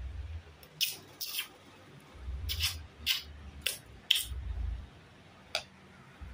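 A toddler eating with a metal spoon from a plastic bowl: about seven short scraping sounds, unevenly spaced, over an intermittent low rumble.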